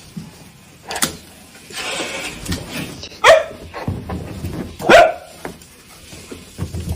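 A dog barking: two loud, short barks about a second and a half apart.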